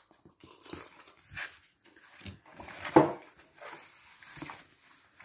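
Cardboard book mailer being torn open along its tear strip and the lid folded back: irregular crackling and scraping of cardboard, with one louder crack about three seconds in.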